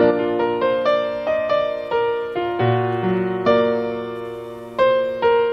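Instrumental intro of a Cantopop ballad backing track, played on a piano-sounding keyboard: a steady run of single notes, with a low bass note coming in about halfway.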